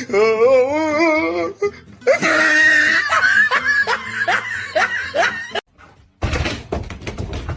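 A person laughing hard in repeated bursts, after a short wavering high-pitched call at the start; music with a beat comes in about six seconds in.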